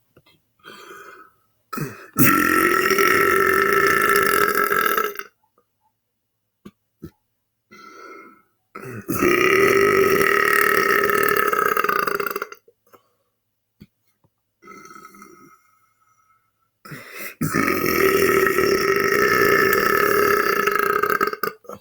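A man letting out three long, loud, deliberate belches one after another, each drawn out for about three to four seconds, with brief quieter sounds in the pauses between them.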